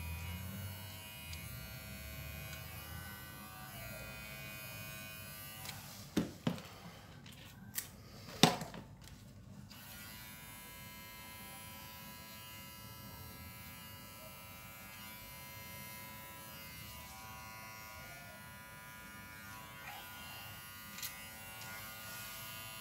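Small cordless Propet finishing trimmer running with a steady motor hum as it clips the fur on a poodle's paws. A few sharp knocks come between about six and nine seconds in, the loudest about eight and a half seconds in.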